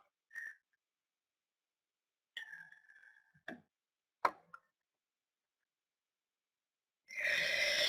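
Near silence broken by a few faint clicks and ticks, the sharpest about four seconds in. About a second before the end there is a short rush of noise.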